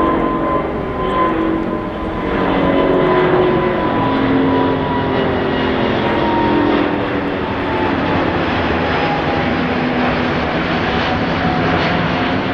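Jet airliner's engines running as it moves past: a steady rush of engine noise with a whine that slowly falls in pitch.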